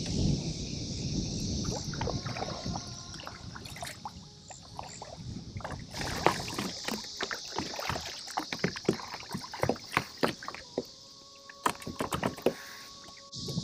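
Kayak being paddled: paddle blades dipping and splashing, with water washing along the hull close to the microphone. In the second half come many short sharp clicks and knocks.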